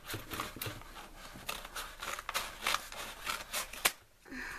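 Scissors snipping through a kraft paper mailer envelope: a quick, irregular run of cuts with the paper crinkling, ending in a sharp snip shortly before the end.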